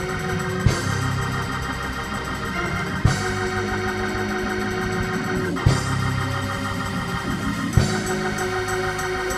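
Organ playing held chords, with a sharp hit four times, about every two and a half seconds.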